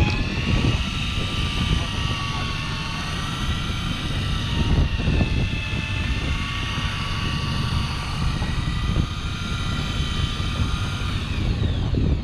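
Daiwa electric fishing reel's motor winding in line under load from a bent rod, a steady high-pitched whine with several tones that fades out near the end. Wind and sea rumble sit underneath.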